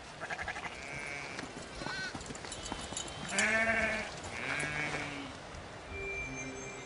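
Sheep bleating: several calls, the loudest a long, wavering bleat about halfway through, followed closely by another.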